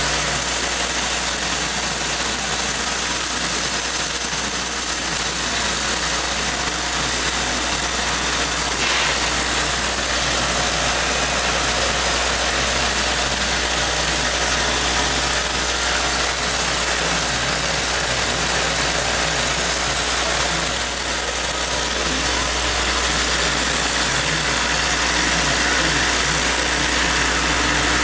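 Vibratory bowl feeder running: the drive unit under the stainless steel bowl hums steadily and low while plastic bottle caps rattle along the bowl's track.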